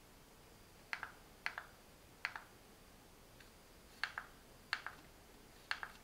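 Buttons on a SofaBaton X1 universal remote control clicking under the thumb: about six presses, most heard as a quick double click.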